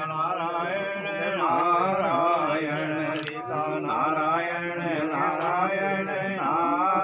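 Voices chanting Hindu wedding mantras in a continuous melodic recitation, as the couple circle the sacred fire for the pheras.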